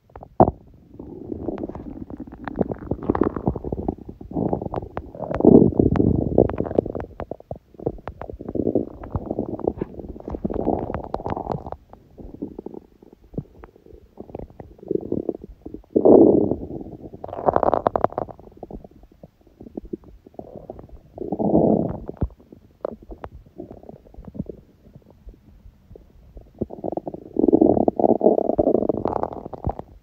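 Empty stomach growling and gurgling: a string of uneven rumbles of varying length, some swelling loud, with short crackling clicks in between.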